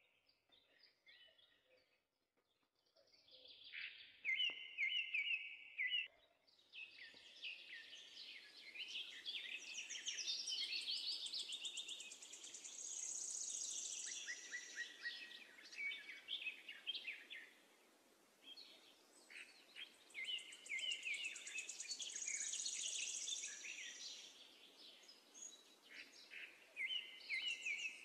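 Faint songbirds chirping and trilling, with bursts of rapid, very high trills twice.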